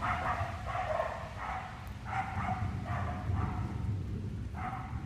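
A dog barking repeatedly, about two barks a second with a short pause near the end, over a steady low rumble.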